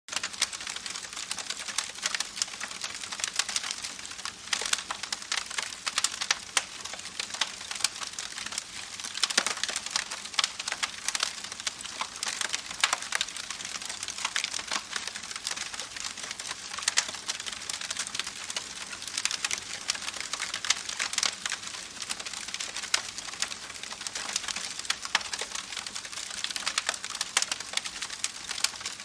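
Campfire crackling, with dense irregular pops and snaps, over the steady rushing of a babbling creek. It starts abruptly out of silence.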